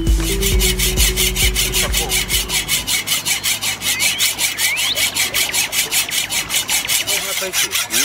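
A hacksaw cutting through a steel reinforcing bar (rebar), with fast, even back-and-forth strokes. Music fades out over the first couple of seconds.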